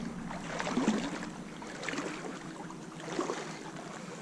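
Water sloshing and splashing with irregular steps of someone wading through a shallow creek, the loudest splash about a second in.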